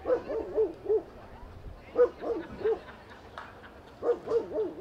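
Dog barking in quick runs of three or four barks, one run about every two seconds.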